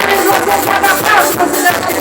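Live forró band playing loud music, with bending melodic lines over a steady beat.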